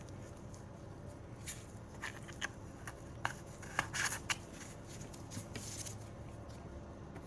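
Small nail-product containers and packaging being handled: a scattering of light clicks and rustles, most of them in the middle few seconds, over a low steady hum.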